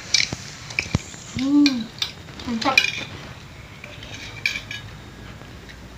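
Plates, bowls and glasses clinking and knocking as people eat and move dishes about, in short scattered taps. A wordless voice sound rising and falling comes about a second and a half in, and another falling one about a second later.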